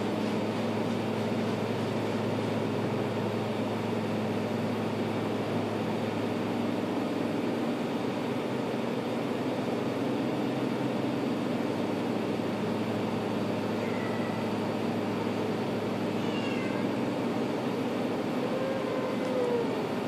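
Persian cat meowing a few times in the second half, short calls that bend in pitch, the last one, about a second before the end, the loudest. Under it runs a steady low machine hum.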